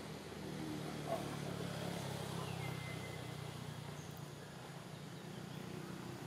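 Low hum of a distant motor engine running, a little louder in the first half, with a single sharp click about a second in.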